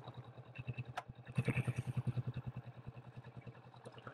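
Kawasaki Vulcan S's parallel-twin engine running at low revs with an even pulsing beat. A sharp click comes about a second in, and the engine gets briefly louder just after.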